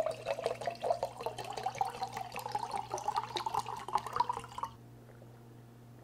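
Coconut water poured from a carton into a glass mason jar, splashing and gurgling, rising in pitch as the jar fills. The pour stops abruptly near the end.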